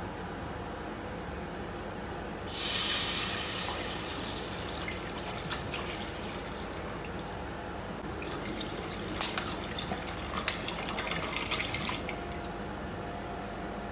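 Water poured from a plastic bottle into an empty nonstick pot. It starts about two and a half seconds in with a loud splash onto the pot's bottom, then runs on as steady splashing, with sharper splashes and ticks toward the end, and stops about two seconds before the end.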